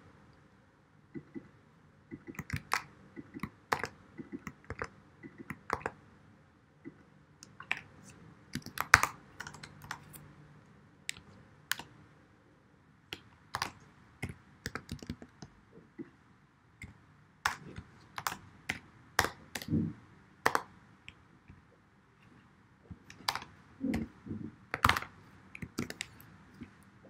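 Typing on a computer keyboard: irregular key clicks in short bursts, with pauses of a second or two between them.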